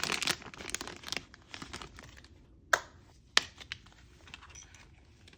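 Rustling and crinkling as the replacement SSD and its kit are handled for about two seconds, then two sharp clicks a little over half a second apart.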